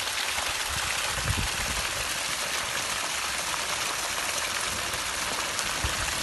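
Heavy rain and rushing storm runoff making a steady, dense hiss, with a brief low rumble about a second in.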